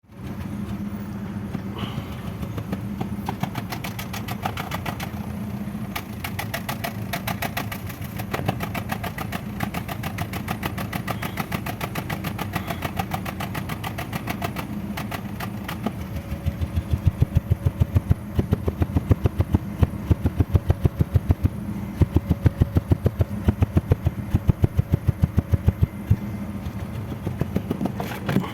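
Engine idling with a misfire. From about halfway through, loud pulses of uneven height stand out above the running idle.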